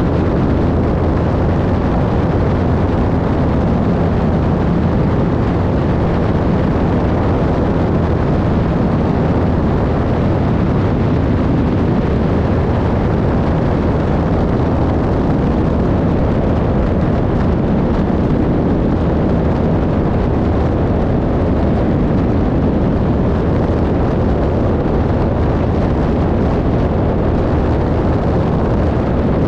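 Lake amphibian aircraft's pusher piston engine and propeller running steadily in flight, a loud, unchanging drone.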